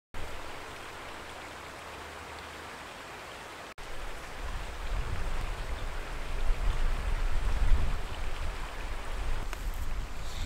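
Steady outdoor hiss of noise. After a brief dropout about four seconds in, it grows louder and is joined by an uneven low rumble.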